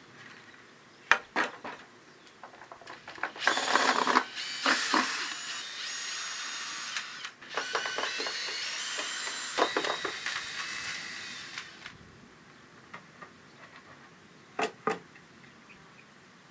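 A small power tool whirring in runs for several seconds, its pitch stepping up and down as the speed changes, with knocks and clatter around it and two sharp knocks near the end.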